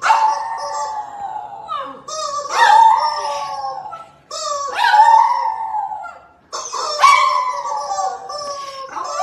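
French bulldog howling: four long howls of about two seconds each, back to back, each sliding down a little in pitch, with the next one starting at the very end.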